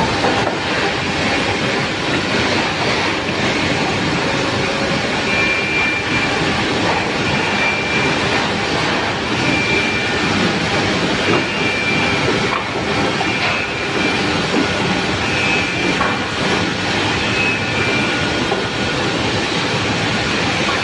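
Woodworking machinery running: a steady mechanical noise with short high-pitched whines now and then.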